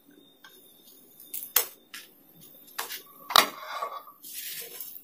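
Spatula clacking and scraping against a nonstick tawa as a cooked puran poli is lifted off: several sharp knocks, the loudest about three and a half seconds in, then a short hiss near the end.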